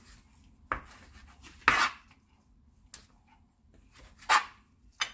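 Cleaver chopping squid on a plastic cutting board: about five separate, unevenly spaced chops, the loudest a little under two seconds in.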